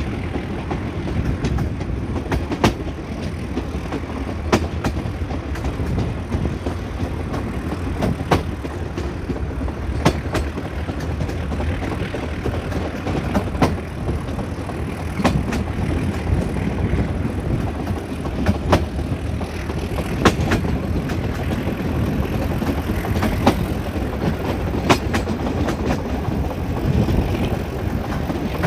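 Metre-gauge train running along the track: a steady rumble of wheels on rail, broken every one to three seconds by a sharp clack as the wheels cross rail joints.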